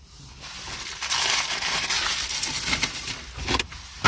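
Paper sandwich wrapper being crumpled and rustled by hand: a continuous crackling rustle from about half a second in, easing briefly, then a sharp louder crinkle near the end.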